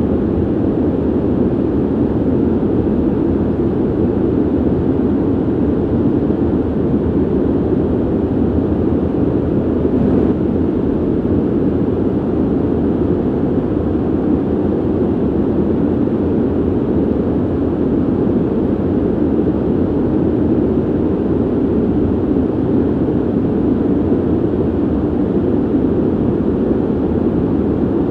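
Ventilation noise: a steady, even rush of air, low and dull, with no tone or rhythm.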